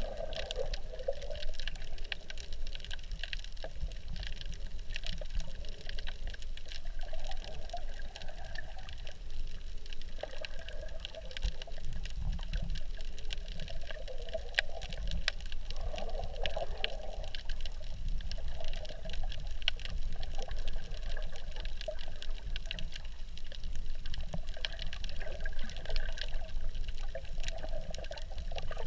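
Underwater sound picked up by a GoPro in its waterproof housing: muffled water movement with a steady low rumble and many small crackling clicks.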